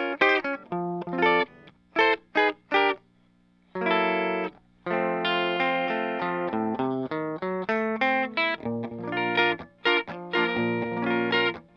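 Early-1990s Rickenbacker 325 V59 electric guitar with flatwound strings and a 1966 vintage bridge pickup, played through a Vox AC30 amp. It plays a lead passage of short picked notes and chord stabs with brief stops, then ringing chords, then choppier notes near the end.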